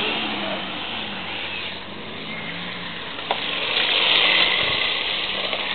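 1/10-scale RC drift car running and sliding on asphalt: a hissing tyre-and-motor noise that swells louder a little over three seconds in, with a single click just before.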